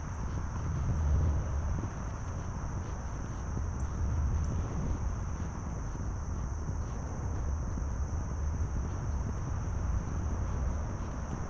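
Wind rumbling on the microphone in gusts, loudest about a second in, over a steady high-pitched drone of insects.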